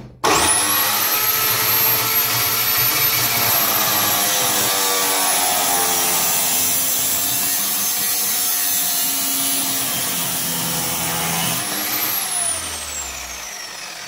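Parkside PMTS 180 A1 metal cut-off saw starting with a sudden high whine that climbs quickly. Its 180 mm abrasive disc then grinds steadily through a square steel tube. About twelve seconds in the pitch lifts briefly, then the motor is switched off and the whine falls away as the disc spins down.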